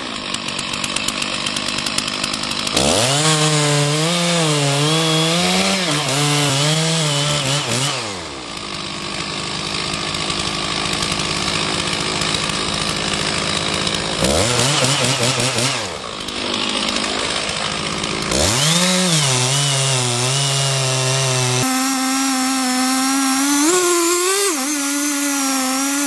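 Chainsaw cutting into the base of a large tree trunk for the felling notch. The engine revs up, sags under load as the chain bites and recovers, easing off briefly between passes. Near the end the sound is played at double speed, so the engine note jumps higher.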